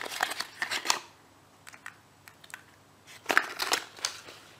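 Small cardboard boxes and packaging being handled: short cardboard rustles, scrapes and light clicks in two spells, one in the first second and another a little after three seconds in, with a quiet gap between.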